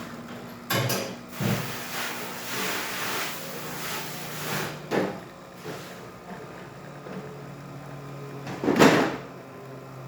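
Breville Oracle Touch espresso machine running during a test shot, a steady low hum, with several knocks and clatters of handling. The loudest clunk comes near the end.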